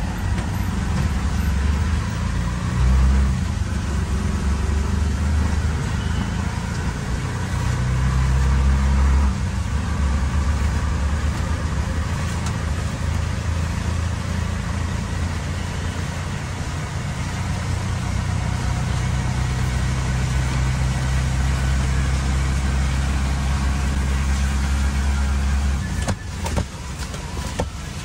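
Auto rickshaw's engine running under way, with road and traffic noise. Its low rumble rises and falls and drops away about 26 seconds in.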